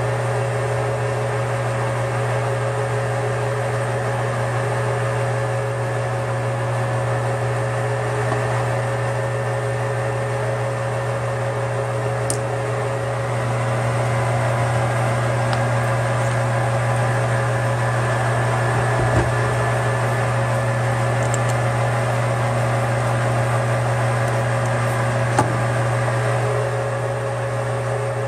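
Metal lathe running with its four-jaw chuck spinning, a steady low hum and a steady whine over a noisy hiss from turning a tool-steel cam. The hiss grows a little louder about halfway through, and a few faint clicks come through.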